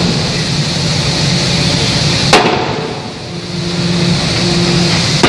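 A 2-ton hydraulic open die forging hammer striking the workpiece: two sharp blows, one a little over two seconds in and one right at the end, over a steady machinery hum with a low tone that comes and goes.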